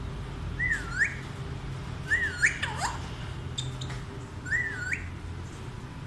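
Alexandrine parakeet whistling the same short phrase three times, each note dipping and then rising, with a short falling call after the second whistle.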